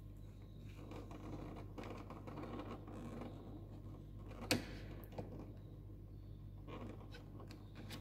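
Faint scraping and rubbing of a BMW K 1600 GTL's plastic left-hand switchgear housing being slid off the handlebar, with one sharp click about halfway through and a smaller click just after, over a steady low hum.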